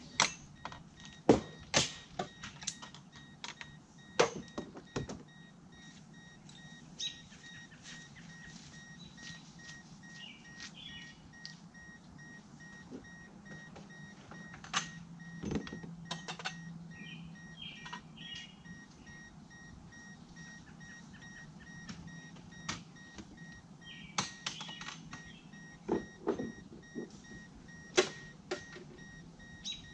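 Scattered clicks and knocks of a plastic fishing kayak and its tie-down straps being handled on a car roof, busiest in the first few seconds and again near the end. A faint steady electronic beep tone sounds throughout.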